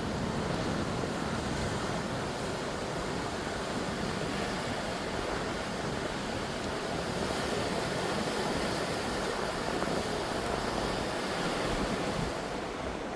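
Pacific Ocean surf washing continuously against the shore, with wind. The sound is a steady wash that eases slightly near the end.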